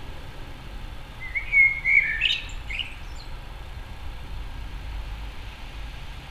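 A common blackbird sings one short phrase about a second in, lasting about two seconds. It opens with fluty warbling notes and ends in a brief, higher, squeaky twitter, over a low steady background rumble.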